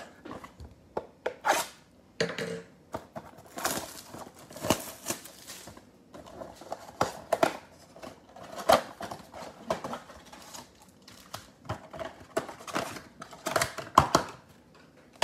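A trading-card mega box being unwrapped and opened by hand: the cellophane wrapper crinkles and tears, and the cardboard box and foil card packs are handled, giving a string of irregular crackles and taps.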